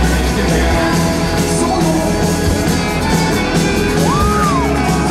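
Loud rock music with singing and yelled vocals; a short tone rises and falls about four seconds in.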